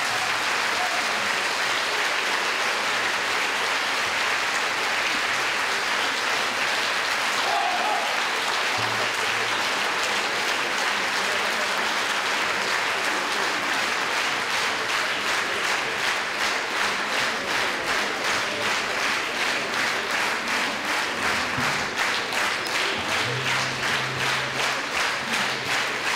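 Large audience applauding in a concert hall. About halfway through, the clapping falls into a steady rhythm of roughly two to three claps a second.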